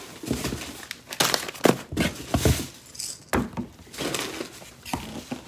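Brown kraft wrapping paper crinkling and rustling as packages are handled and unwrapped, with several irregular knocks of boxes and packages being moved.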